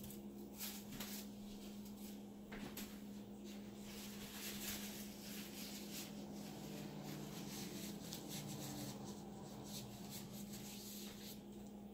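Faint, irregular rustling and scraping handling noises over a steady low hum.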